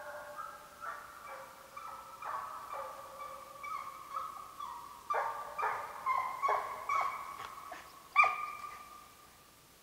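Hamiltonstövare hound baying: a run of drawn-out, pitched bays roughly every half second, the loudest one near the end, before it breaks off. It is the voice of a scent hound giving tongue on a hare's trail.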